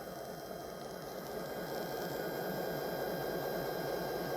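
Recorded diesel locomotive engine sound effect played back through a small speaker: the prime mover running with a steady rhythmic chugging, growing a little louder about a second and a half in.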